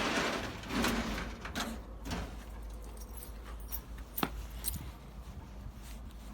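Keys jingling and a door lock being locked: a rustle of handling, then a run of sharp metallic clicks, the loudest about four seconds in.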